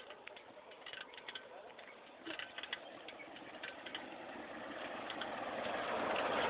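Bicycle rattling and ticking over a rough dirt road, then the steadily rising noise of a motor vehicle coming up close in the last couple of seconds.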